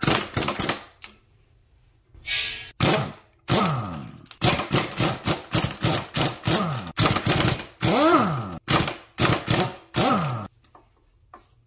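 Air impact wrench hammering in about a dozen short bursts, its motor pitch swooping up and down with each trigger pull, as it works stubborn bolts loose on a transfer-case drive shaft.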